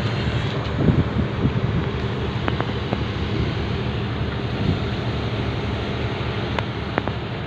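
Excavator's diesel engine running steadily, with a few faint sharp clicks about two and a half seconds, three seconds and seven seconds in.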